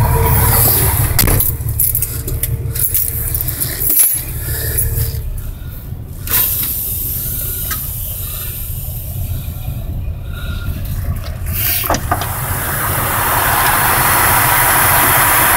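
Semi-truck diesel engine running, heard from inside the cab as a steady low rumble, with a few knocks and rattles as the phone is handled. The overall noise grows louder again from about twelve seconds in.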